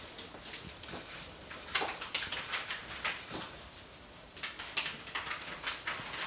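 Doberman pinscher puppies playing and scuffling over a fabric toy: an irregular patter of small paws and claws on carpet and a rug, with scrabbling and rustling.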